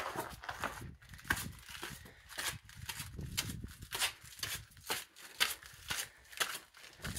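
Footsteps of a hiker climbing stone steps, a quick run of scuffing treads about two to three a second, over a low rumble.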